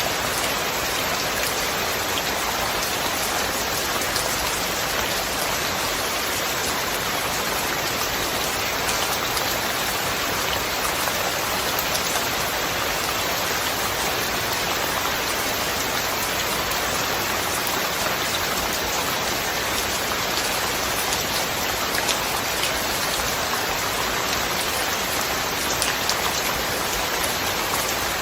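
Steady rain falling: an even hiss of many drops, with a few sharper single drop ticks now and then.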